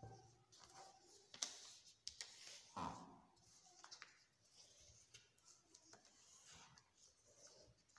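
Faint rustling and crinkling of a sheet of paper being folded and creased by hand, with a couple of sharper crackles in the first three seconds.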